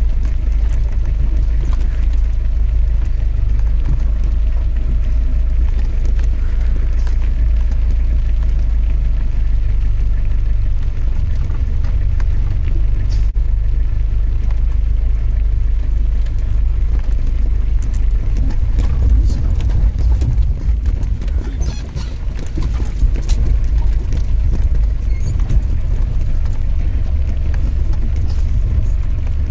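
A jeep's engine and drivetrain running with a loud, steady low rumble, heard from inside the cabin as it drives over a rough dirt track. Scattered knocks and rattles come from the body jolting, more often in the second half.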